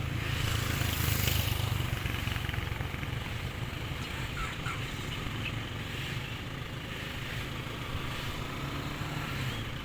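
Steady low drone of a small engine running, with light outdoor noise over it.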